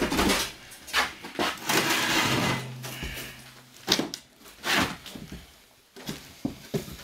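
Heavy wood stove being shoved and walked across wooden boards: a series of sharp knocks and bumps of metal on wood, with a longer scraping slide about two seconds in.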